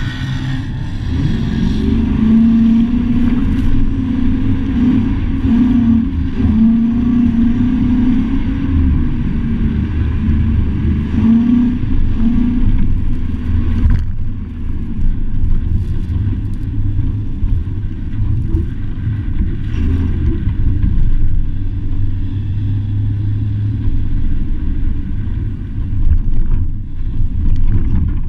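Truck driving on a dirt trail: a steady low rumble of engine and running gear, with an engine note that wavers up and down through the first half.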